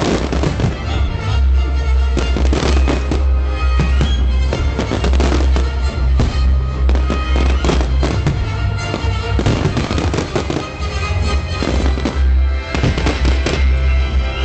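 Fireworks bursting and crackling in rapid, uneven volleys over loud music with a heavy, steady bass.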